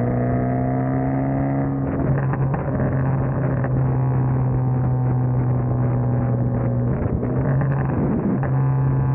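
Straight-piped, turbocharged Hyundai Genesis Coupe's exhaust while driving. The engine note rises slightly for about two seconds, then holds steady at cruising speed, with a short break in the note about seven seconds in.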